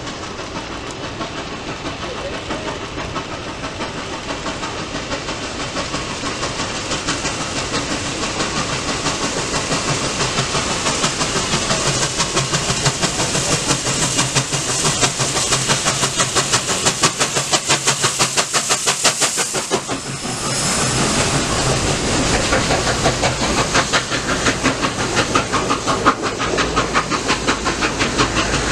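Nickel Plate Road 765, a 2-8-4 Berkshire steam locomotive, working toward and past: its exhaust chuffs grow louder in a fast, even beat as it approaches. About twenty seconds in the beat gives way to the rumble and clickety-clack of the passenger cars rolling by.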